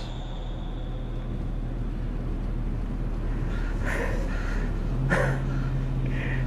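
Steady low drone of a car's engine and road noise heard from inside the cabin, with two short sounds about four and five seconds in.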